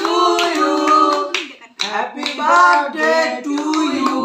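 Voices singing with hand claps in a small room, breaking off briefly in the middle.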